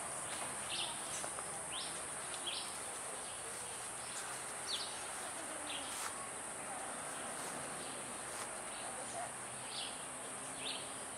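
Outdoor ambience: short high bird chirps now and then, about every second or two, over a steady high insect drone.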